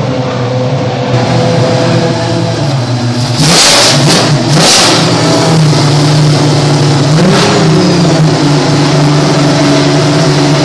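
Ferrari 333 SP's V12 racing engine idling, given two sharp throttle blips about three and a half and four and a half seconds in, then rising slightly and settling back into a steady idle.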